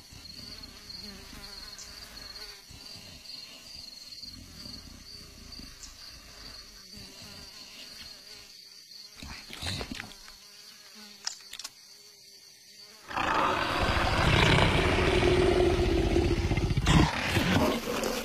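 Quiet ambience with a faint steady buzz, then about thirteen seconds in a loud, rough animal roar that lasts several seconds.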